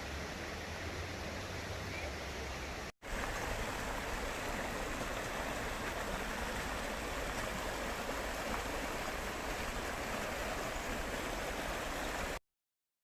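Stream water rushing steadily. It breaks off for a moment about three seconds in, comes back a little louder, and cuts off suddenly near the end.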